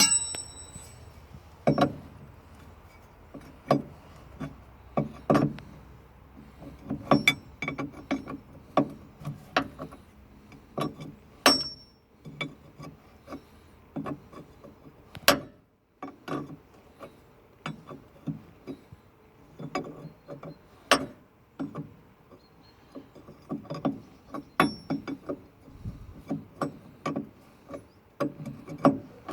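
Spanners working on a solenoid valve in an excavator's valve chest: irregular metallic clicks, taps and knocks of steel tools on steel, a few ringing briefly, as the valve is tightened up.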